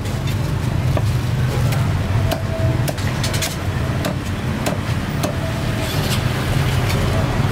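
A knife chopping and tapping through roast duck on a thick round chopping block, with irregular sharp knocks about once or twice a second. A steady low rumble runs underneath.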